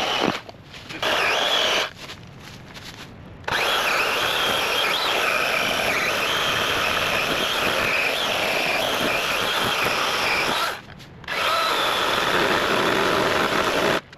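Battery electric chainsaw cutting through a fallen log in bursts: two short bursts at the start, then a long cut of about seven seconds, a brief pause, and another cut that stops just before the end.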